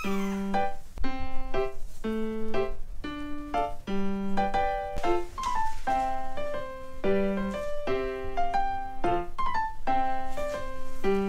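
Background music: a gentle solo piano melody, with notes played one after another at an even pace.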